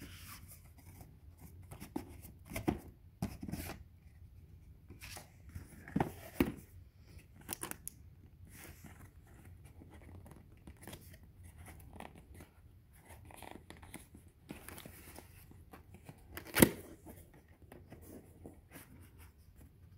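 Cardboard product box being opened by hand: scattered scraping, rustling and tearing of the packaging and its tab, with one sharp snap about three-quarters of the way through.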